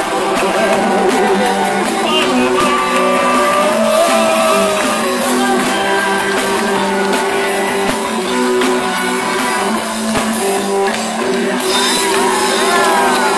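Live rock band playing: electric guitars and drums under male and female singing.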